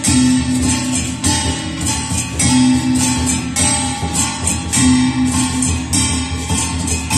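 Music led by a strummed, guitar-like plucked string instrument over a steady rhythm, with a low held note returning about every two and a half seconds.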